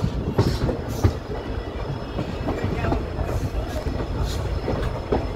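Passenger coach running along the track, its wheels clacking over rail joints above a steady rumble, heard at an open coach doorway. The sharpest clacks come about half a second and a second in.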